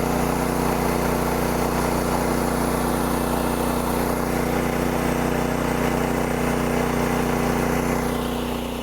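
Gasoline engine of a Woodland Mills HM126 bandsaw mill running at a steady speed, easing off near the end.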